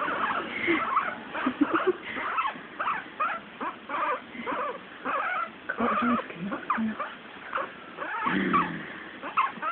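Guinea pig squeaking over and over, short chirping squeaks several a second, with a lower, longer sound lasting under a second about eight seconds in.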